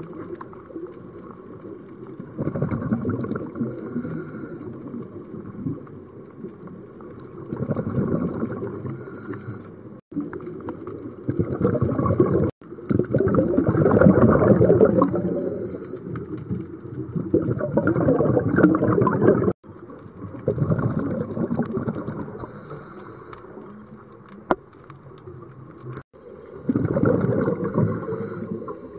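Scuba diver's breathing heard through an underwater camera: rushing bursts of exhaled bubbles every few seconds, with short hisses from the regulator on the in-breath. The sound cuts off abruptly a few times.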